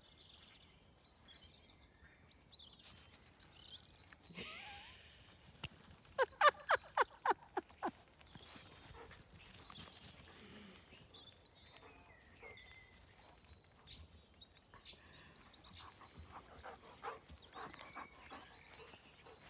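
Dog barking in a quick run of about eight sharp barks, lasting about two seconds, starting about six seconds in.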